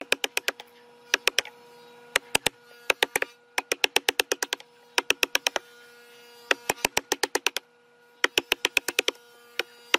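Wide wood chisel being driven into a pine board to chop out a notch, in about nine quick bursts of sharp knocks, each burst a rapid run of strikes with short pauses between.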